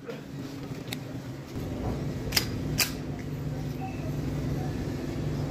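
A few sharp clicks from a locally made pistol being handled and readied to fire, over a low steady hum that comes in about a second and a half in.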